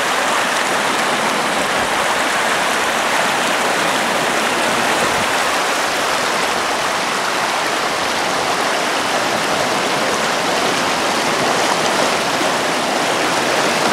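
Shallow creek water rushing over rocks, a steady loud rush.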